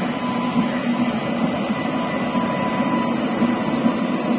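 Indian Railways electric locomotive running past close by: a steady running hum with a thin, steady high whine over it.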